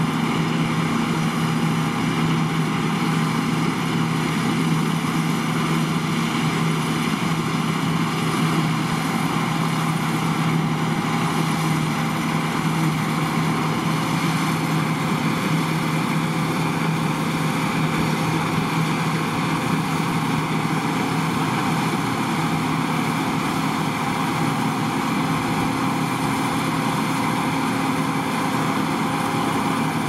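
John Deere T560 Hillmaster combine harvester running steadily while cutting standing oats, its engine and threshing gear holding one even pitch.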